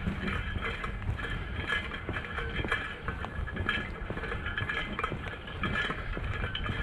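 A drink clanking around in a metal water-bottle holder carried by a walking hiker: many quick, irregular little metallic clinks, over a low rumble.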